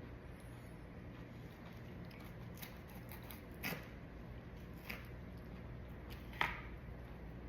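A person biting and chewing a raw hot pepper: a few short crunches, the loudest about six seconds in, over a low steady hum.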